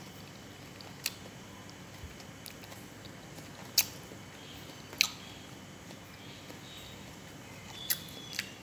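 Someone chewing ripe jackfruit bulbs, quietly, with about five short sharp clicks scattered through.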